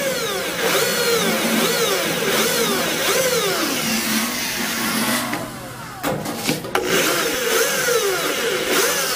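Handheld electric drill boring holes through a perforated metal sheet, revved in short repeated pulses, its pitch falling on each one. About five and a half seconds in it drops away briefly, with a few sharp clicks, then starts again.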